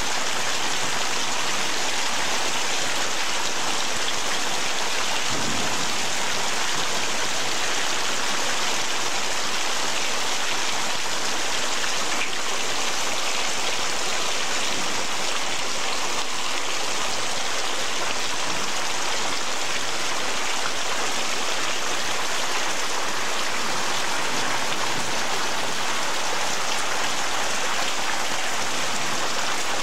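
Heavy rain falling steadily, splashing on pavement and outdoor furniture. A short low thump comes about five seconds in.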